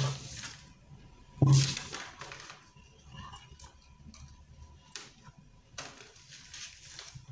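Scissors snipping through a paper sewing pattern, with the paper rustling as it is handled. There is one louder handling noise about a second and a half in, and a few short clicks later.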